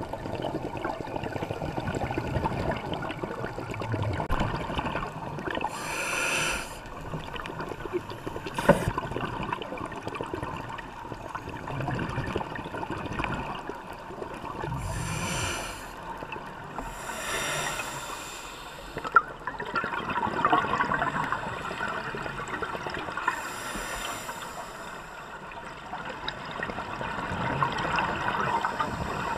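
Scuba regulator breathing heard through an underwater camera housing: about four gushes of exhaled bubbles, each about a second long, over a constant crackling hiss. Two sharp knocks, about 9 and 19 seconds in.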